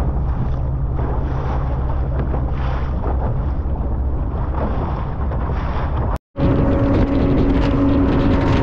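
Wind buffeting the microphone, with the rush of water and the low drone of a boat's motor. After a brief break about six seconds in, an outboard motor runs with a steady hum under wind and water noise.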